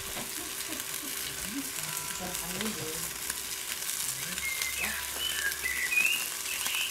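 Steady sizzling hiss with light crackle from a Steak Burner XL gas grill, with bits of spilled pizza topping frying on its hot pizza stone. A few short high chirps sound near the end.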